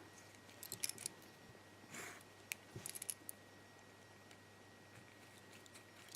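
Faint clicks and light metallic taps from small padlock parts being handled and fitted, about half a dozen in the first three seconds, then near quiet.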